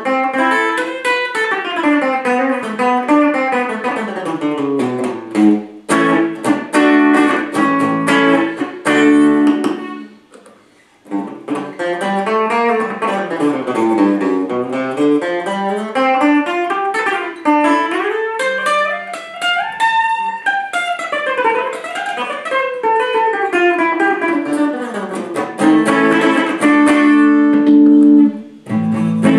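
Soviet Ural electric guitar played through overdrive: fast picked runs sweeping up and down the neck, with a short break about ten seconds in and held notes near the end.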